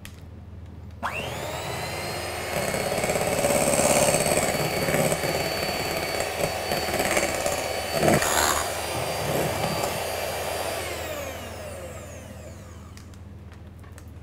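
Electric hand mixer whisking meringue: the motor starts about a second in and runs steadily with a high whine, with a brief knock about eight seconds in, then spins down with falling pitch near the end.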